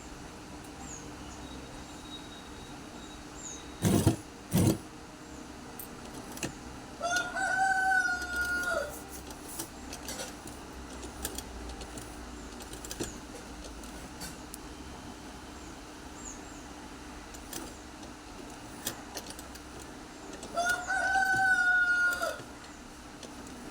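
A rooster crowing twice, each crow about two seconds long and some thirteen seconds apart. Two sharp knocks come about four seconds in.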